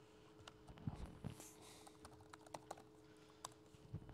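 Faint, scattered clicks of typing on a computer keyboard, with a few soft low thumps, over a faint steady hum.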